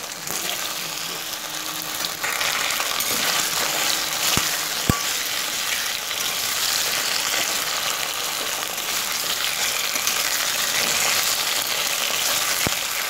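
Pieces of kham alu (greater yam) sizzling in hot mustard oil in a kadai, a steady frying hiss. A few short sharp clicks come at about four and a half seconds, five seconds and near the end.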